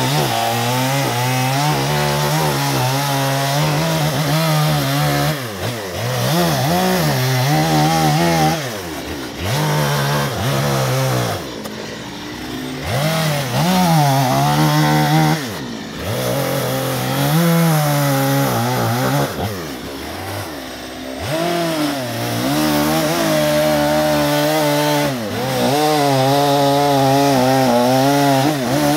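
Gas chainsaw cutting into a western red cedar log for a bear carving. The engine revs up and down with each cut and drops back to a lower speed between cuts several times.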